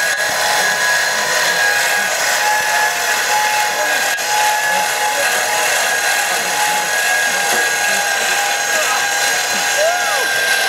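A machine running steadily at high speed with a constant high-pitched whine.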